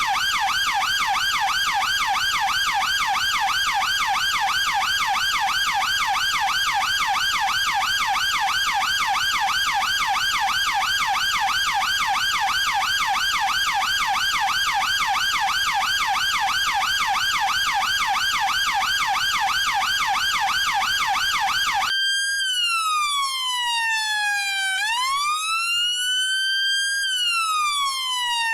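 Chinese police electronic siren sounding a rapid yelp, its pitch sweeping up and down several times a second. About 22 seconds in it switches to a slow wail that falls, rises again and starts to fall.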